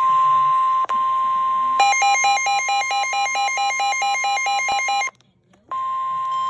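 Emergency alert tone: a steady single high tone, the 1050 Hz warning alarm tone used by NOAA Weather Radio. From about two seconds in, a second beeping tone that switches rapidly between pitches sounds over it for about three seconds. Both cut off about five seconds in, and the steady tone returns half a second later.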